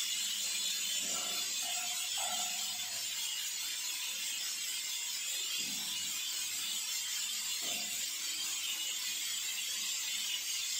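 A steady hiss, with a few short, light clinks and scrapes of a metal bowl being handled, about one and two seconds in, then again near six and eight seconds.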